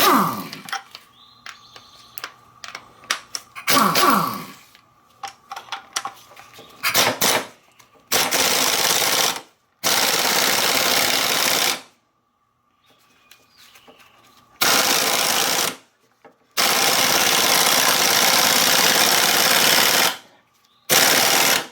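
Impact wrench hammering in four runs of one to four seconds, with pauses between them, after a few seconds of scattered clicks and knocks. It is spinning a nut down a threaded rod to press a pulley onto a power steering pump shaft until the pulley sits flush.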